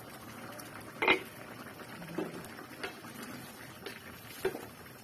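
A stainless steel pot lid clanks sharply once, about a second in, as it is taken off a pan. Then a wooden spatula stirs the food and knocks against the pan four more times, more softly.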